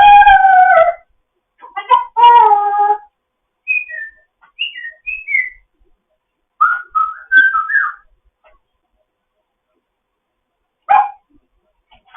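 African grey parrot calling and whistling: two longer calls at the start, then a string of short gliding whistles, a warbling whistled phrase, and one short call near the end, with pauses between.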